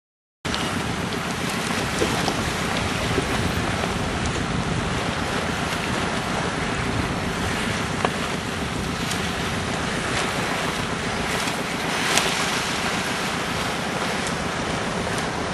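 Steady wind buffeting the microphone over the rush of open sea water around a boat, with a few faint brief splashes from dolphins breaking the surface. The sound drops out completely for a split second at the very start.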